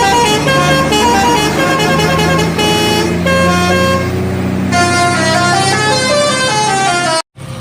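Bus telolet horn, a multi-tone musical horn, playing a quick tune of stepped notes over a low steady hum. It cuts off suddenly near the end.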